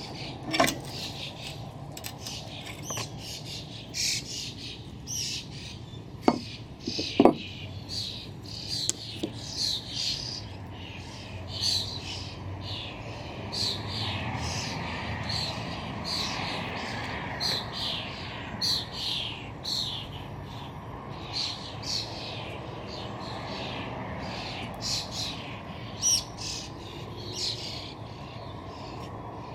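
Birds chirping again and again in quick short calls, over a steady low background. Three sharp knocks come in the first several seconds.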